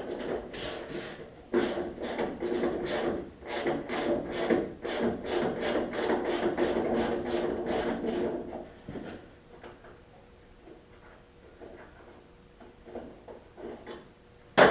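Ratchet wrench cranked back and forth in quick rasping strokes, about two or three a second, loosening trunk-lid hinge bolts. The cranking stops after about eight seconds, leaving a few light clicks and one sharp clack near the end.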